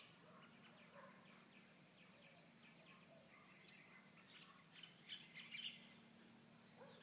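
Near silence: faint bird chirps over a low steady hum, the chirps busiest and loudest about five seconds in.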